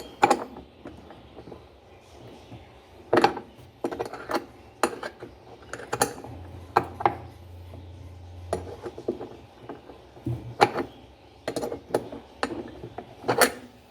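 Irregular metallic clinks and knocks from a wrench and metal fastening parts as a top-load washing machine's basket is tightened onto its spin tube.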